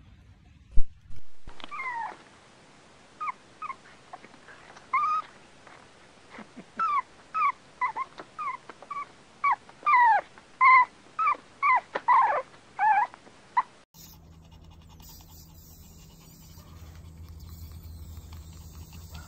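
Puppy whimpering and yelping: a run of short, high cries, most falling in pitch, coming quicker toward the end. A sharp knock comes just before the cries begin, and after them there is only a steady low hum.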